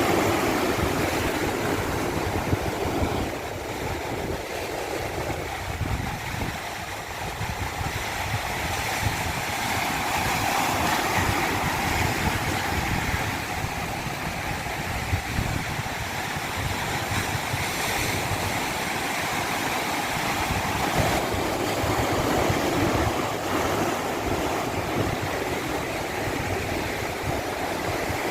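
Stream water rushing in a continuous wash that swells and eases slightly.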